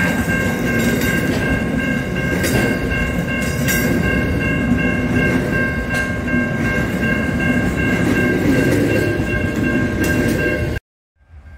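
Container freight train's wagons rolling past at a level crossing: a loud steady rumble with occasional wheel clunks, over several steady ringing tones from the crossing's alarm bells. The sound cuts off suddenly near the end, leaving only a faint rumble.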